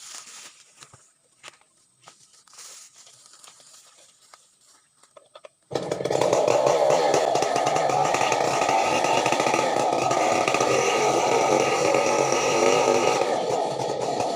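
Quiet with a few faint clicks for the first five or six seconds, then a chainsaw cuts in suddenly at full loudness and runs steadily.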